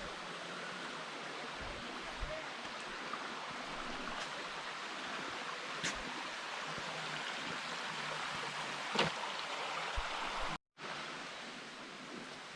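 Steady rush of falling water from a waterfall, with a few faint clicks and knocks. The sound cuts out briefly near the end.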